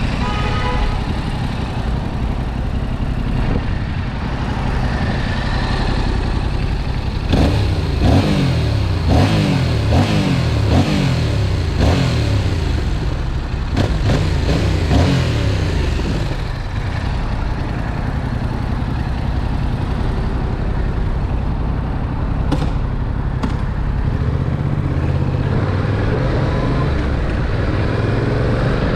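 Stock 2021 Yamaha MT-07's 689 cc parallel-twin engine and exhaust heard riding along, with wind on the microphone. Partway through, the revs drop in a quick series of falling sweeps, each one restarting higher, before settling into a steadier run near the end.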